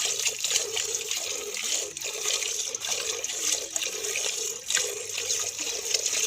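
Streams of milk squirting into a milking pail as a buffalo is milked by hand, a continuous liquid hiss and spatter made up of repeated short squirts.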